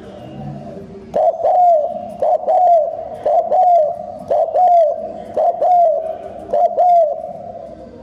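Spotted dove cooing close up: six coos about a second apart, each a short note followed by a longer arching note, starting about a second in.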